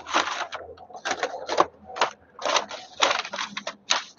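Handling noise: a quick, irregular string of clicks and taps, a dozen or so, as objects are handled close by.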